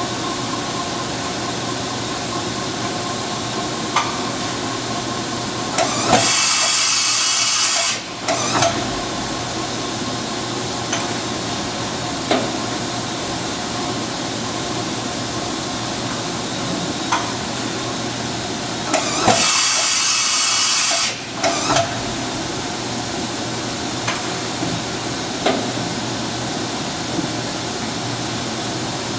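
Fadal VMC-4020FX vertical machining center's dual-arm side-mount tool changer making two tool changes. Each change is a loud hiss about two seconds long with clunks around it, the second coming about thirteen seconds after the first. The machine hums steadily throughout.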